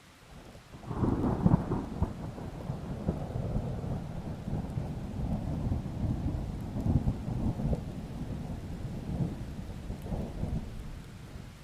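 A thunderclap breaks about a second in and rolls on as a long rumble that swells several times, over a steady hiss of rain. It fades near the end.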